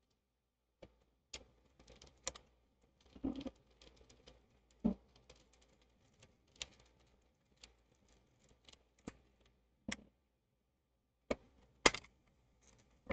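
Crucial MX500 SSD's packaging being opened and handled: scattered light clicks, taps and rustles, with a few louder knocks.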